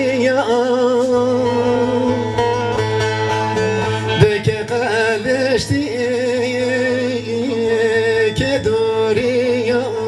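Live folk music: a man sings a wavering, ornamented melody, accompanied by a small wind instrument and a strummed bağlama (long-necked saz).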